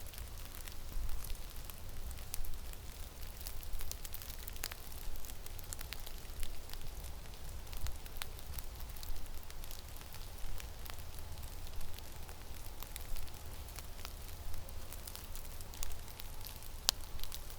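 Blizzard wind buffeting the microphone as a steady low rumble, with an even hiss and scattered sharp ticks and crackles throughout.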